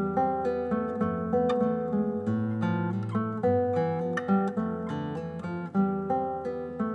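Nylon-string classical guitar played solo, a steady flowing run of fingerpicked notes with low bass notes under them.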